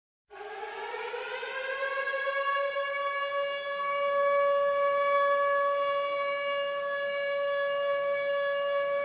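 A siren-like tone winds up in pitch over the first couple of seconds, then holds one steady note and grows somewhat louder.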